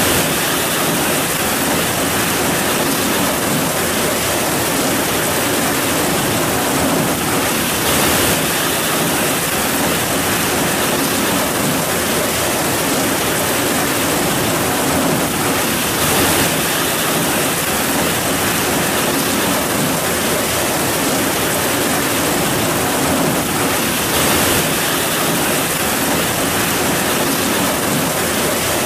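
Heavy rain falling steadily, a dense, even hiss of drops, with a slight swell about every eight seconds.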